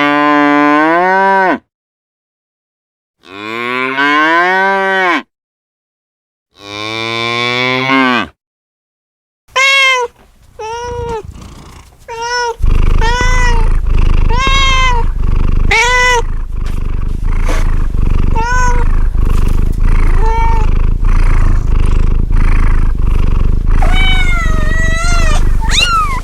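A cow mooing three times, each moo a long low call of about two seconds that rises in pitch, with silent gaps between. From about ten seconds in, a cat meows over and over in short high calls, against a steady background noise.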